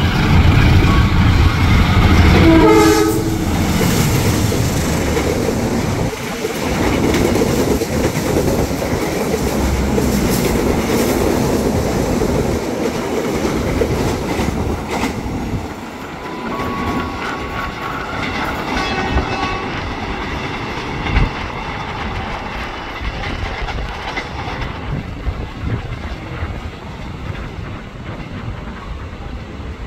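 Diesel-electric locomotive's horn sounding as it reaches the camera, its pitch dropping as it passes. The locomotive and a long rake of passenger coaches then roll by with wheels clacking over the rail joints, the rumble fading after about the halfway point as the train moves away.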